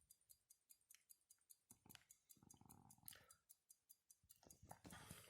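Faint, even ticking of a 1930s Stowa pocket watch's mechanical movement, about five ticks a second, with light handling noise of the watch from about two seconds in.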